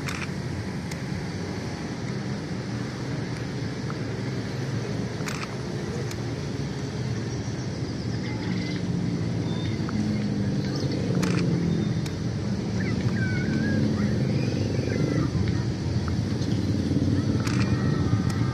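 Distant train rumble, a diesel locomotive approaching along the line, with the low rumble growing gradually louder. A few sharp clicks and some short bird-like chirps sound over it.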